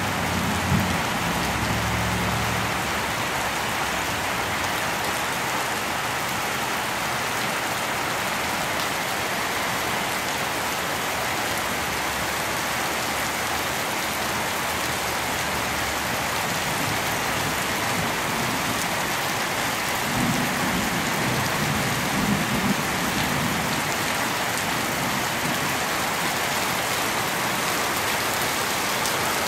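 Steady rain falling, an even dense hiss. Brief low rumbles come through about a second in and again about two-thirds of the way through.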